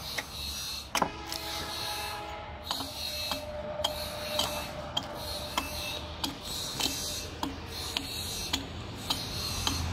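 Repeated chopping as a long-handled adze bites into the side of a log, hewing it, about two blows a second.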